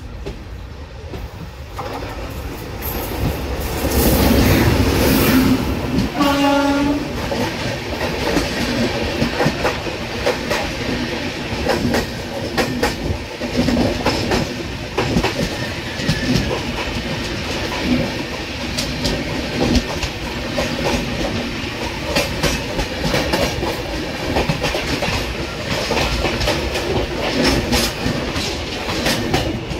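A passing train on the next track: its electric locomotive rushes past about four seconds in and gives one short horn blast about six seconds in. Its coaches then clatter by in a long run of rapid wheel clicks over the rail joints, over a steady rush of air, heard from the door of another train.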